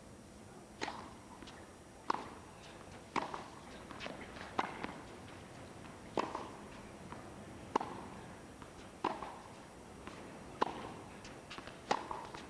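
Tennis ball struck back and forth with rackets in a long baseline rally, about one sharp hit every second and a half, with fainter ticks between the hits.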